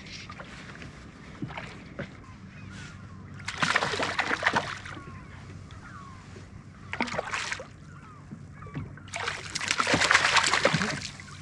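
Water splashing as a hooked kahawai thrashes at the surface beside the boat and is scooped into a landing net. It comes in three bursts, the longest and loudest about ten seconds in as the net lifts the fish.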